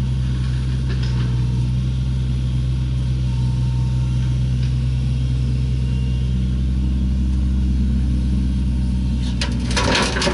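Diesel engine of a mini hydraulic excavator loading a dump truck, running steadily. About nine seconds in, a burst of clattering and crunching begins as the loaded bucket comes over the truck bed.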